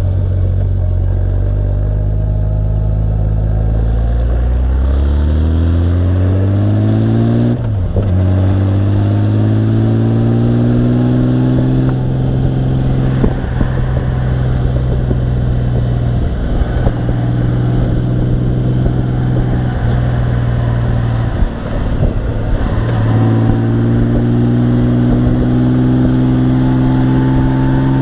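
Honda Gold Wing motorcycle engine pulling under acceleration with road noise. Its pitch climbs, drops sharply at a gear change about eight seconds in, climbs again and holds steady at cruise, dips briefly past twenty seconds, then climbs again near the end.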